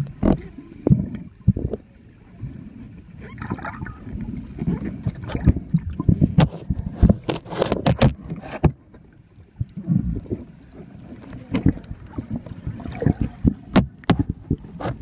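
Muffled underwater water noise from a camera held below the surface: sloshing and bubbling, broken by irregular sharp clicks and knocks, most of them in the middle of the stretch and again near the end.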